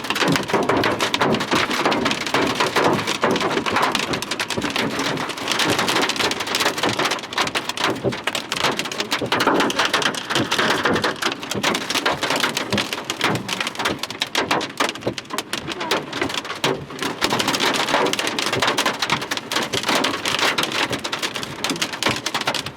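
Large hail, near baseball size, hitting the roof of a vehicle's cab in a dense, continuous clatter of impacts, heard from inside the cab.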